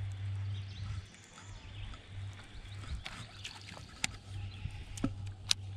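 Baitcasting reel being cranked on a lure retrieve, with a few sharp clicks about three to five seconds in, over a low steady hum.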